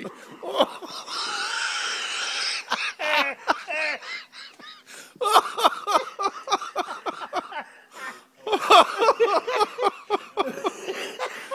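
A flock of crows cawing together in loud bursts of many overlapping calls, with short lulls between the bursts.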